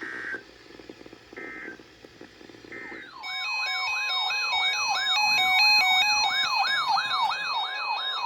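Three short digital data bursts, typical of a NOAA Weather Radio SAME end-of-message signal, about a second and a half apart. About three seconds in, a loud electronic siren-style alert starts, its pitch wailing up and down about two and a half times a second, with beeping tones stepping over it.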